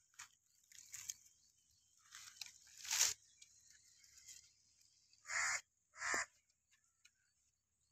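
Two crow caws, about a second apart, in the second half, over a faint steady high hiss. A short louder noise comes about three seconds in, with faint scattered small noises around it.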